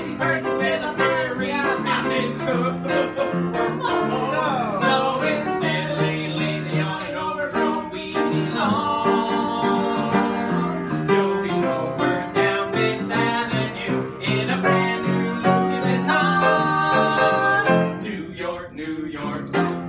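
Upright piano playing a show tune, with voices singing over it.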